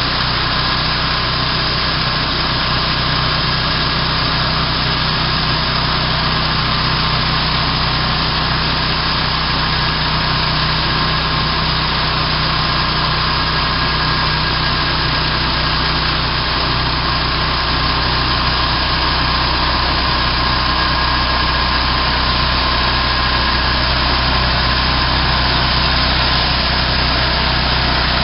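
Homemade band sawmill's small engine running at a steady speed, with the band blade sawing lengthwise through a log. Steady hum throughout, with no change in pitch or level.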